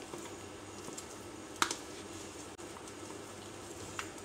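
A metal spoon stirring raw minced chicken mixture in a plastic tub, with a few sharp clicks as the spoon knocks the container, the loudest about a second and a half in and another near the end, over a steady low hum.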